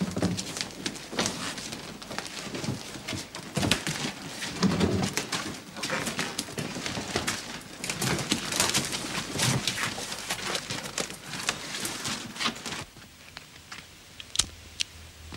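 Footsteps, knocks and the rustle of clothing as several men pull on coats and move about on a wooden floor, a busy run of irregular clicks and bumps. It drops away about thirteen seconds in, leaving a couple of sharp clicks and a low hum.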